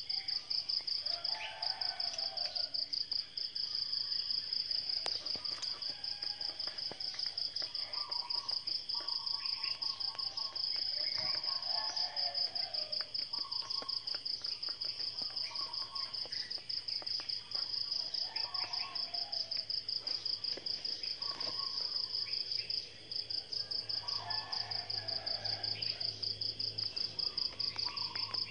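Insects trilling steadily in a high, fast-pulsing buzz that is the loudest sound, with short bird calls every second or two.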